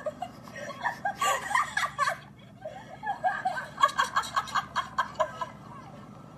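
People laughing in two bouts, the second a run of quick, rhythmic laughs.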